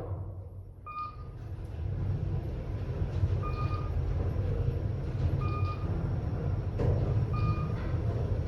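KONE traction elevator car travelling, a steady low rumble, with four short electronic beeps of one tone about two seconds apart, typical of the car's floor-passing tone.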